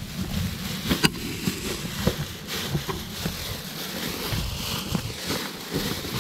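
Thin plastic bags crinkling and rustling as they are handled, with scattered small knocks.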